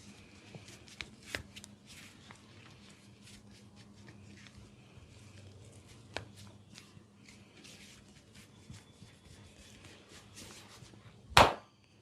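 Hands massaging oiled skin: soft rubbing, patting and light clicks, with one loud sharp smack near the end.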